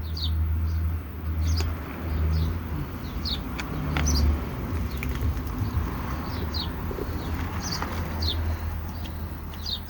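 Small bird chirping over and over, short falling chirps about once or twice a second, as it struggles while being worked free of a glue trap. A strong, uneven low rumble runs underneath.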